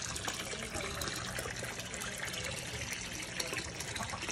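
Water pouring into a pond, splashing and trickling steadily on the surface.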